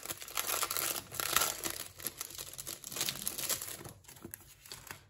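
Clear plastic packaging and paper inserts crinkling and rustling as they are handled, dying down near the end.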